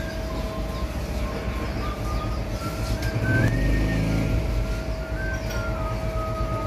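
Low rumble of passing traffic, swelling about halfway through, over a steady hum and a faint thin tune.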